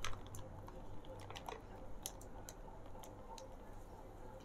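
A spoon stirring a tall glass of ice, orange juice and soda water: scattered light clinks and ticks of ice and spoon against the glass over a faint fizz.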